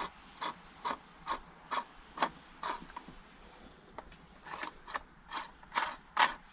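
Ratcheting clicks from the toolless bar-cover knob of a LYNXX 40V cordless chainsaw as it is unscrewed by hand, about two clicks a second, with a short pause partway through.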